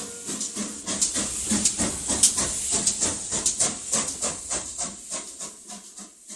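Steam locomotive exhaust chuffing in a fast, even rhythm of about four to five beats a second, with steam hiss; the beats fade away near the end. The engine is Midland Railway 4F 0-6-0 No. 43924.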